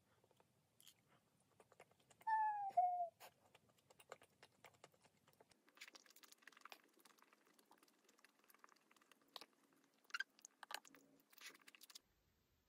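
Close-up mouth sounds of chewing soft, boneless chicken feet in spicy sauce: faint wet smacking and many small clicks. About two seconds in there is a brief hum that dips in pitch.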